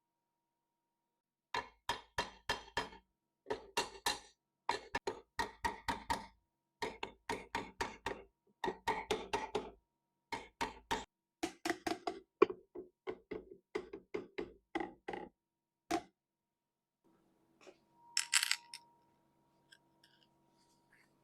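Hand-tool work on the cast-iron mill head: quick runs of sharp metallic clicks or taps, about five a second, each with a short ring, stopping about fifteen seconds in. A faint steady hum follows, with a brief hiss.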